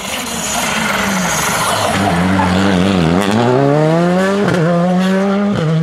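Rally car engine slowing into a tight bend, the revs falling about three seconds in, then accelerating hard away with the revs climbing and a quick upshift about a second later.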